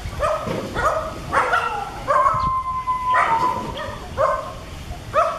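Macaque calling: a run of short, high yelping cries, about one every half second to second, with one longer drawn-out cry in the middle.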